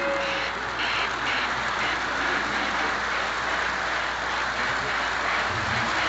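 Lionel O-gauge freight train running past: the cars' wheels roll on three-rail track in a steady rushing clatter, mixed with the electronic steam sound of the 4-8-4 Northern locomotive.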